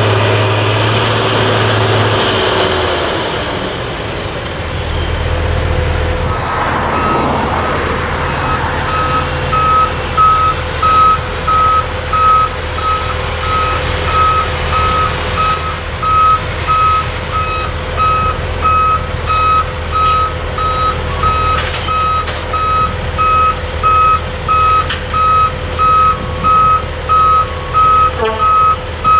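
Heavy diesel truck engine running, loud at first and easing off about two seconds in, then a backup alarm beeping steadily about once a second over the engine.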